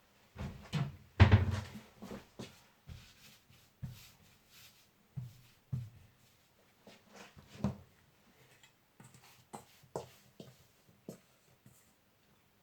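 Kitchen handling noises: a scattered series of soft knocks and taps on a work surface, the loudest about a second in, with quiet gaps between.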